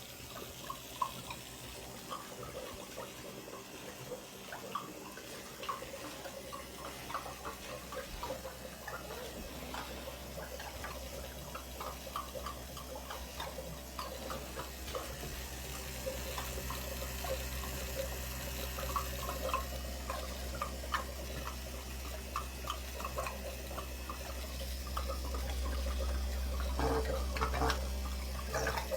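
Water gurgling and splashing as a small 12V diaphragm pump pushes it through a hose. A steady low pump hum underneath grows louder in the second half.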